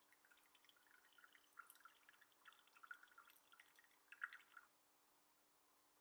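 Brewed coffee dripping from a pour-over dripper's paper filter into a mug: faint, quick, uneven drips that stop a little before the end.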